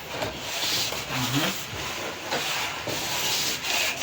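Packaging being handled while a monitor is unboxed: continuous scraping and rubbing of box and packing material, uneven in loudness.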